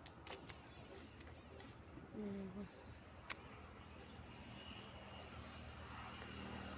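Crickets chirping in a steady high-pitched chorus, with a brief low voice-like hum about two seconds in and a single sharp click a little after three seconds.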